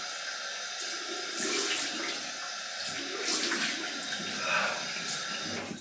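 Water running from a tap into a bathroom sink while it is splashed by hand onto the face in a full water rinse after shaving, with several louder splashes. The water stops near the end.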